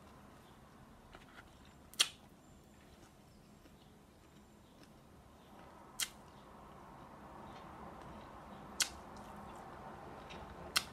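A person quietly chewing a mouthful of burger on a pretzel roll, with four short, sharp clicks spread through the chewing.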